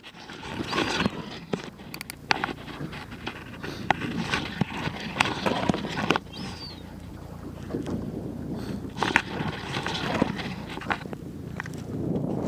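Irregular clicks and knocks from a spinning reel and fishing rod being worked while playing a fish, over a continuous rushing noise of wind and water.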